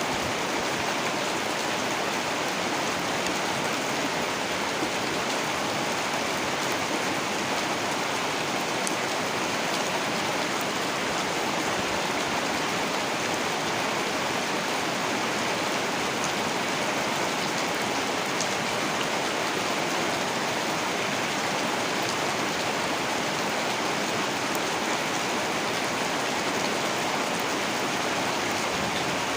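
Heavy rain falling steadily, an even unbroken hiss of downpour with a few faint drop ticks.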